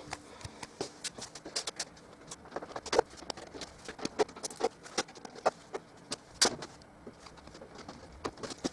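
Irregular light clicks and taps of a screwdriver working small metal screws out of a dishwasher's sheet-metal casing, with sharper clicks about three seconds in and again about six and a half seconds in.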